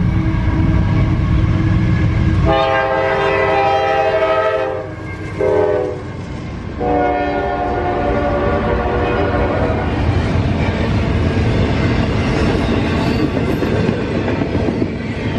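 Norfolk Southern freight train at a grade crossing: the locomotive's air horn sounds a long blast, a short one and another long one, over the heavy rumble of the locomotive. The horn stops in the second half, leaving the steady rumble and clatter of the train's cars rolling past.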